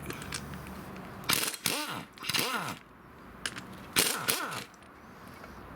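Handheld power tool run in three short bursts, its pitch rising and falling with each burst, as the connecting-rod cap bolts of a Hyundai i30 1.4 engine are undone.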